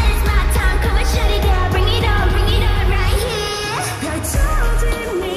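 K-pop song with female group vocals singing over a heavy, bass-boosted beat, mixed as 8D audio so the sound pans around the listener's head. The bass drops out briefly about four seconds in.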